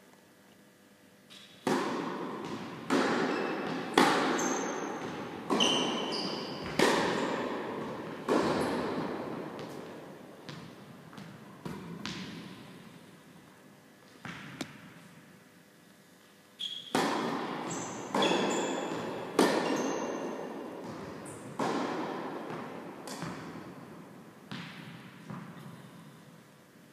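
Tennis balls struck by rackets and bouncing on the court during a rally, a sharp hit about every second and a half, each ringing out in the echo of a large hall. Two runs of hits with a pause of a few seconds around the middle.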